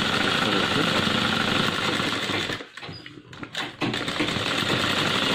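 Single-needle sewing machine running fast, stitching fabric. It stops for about a second, a little past halfway, then runs on again.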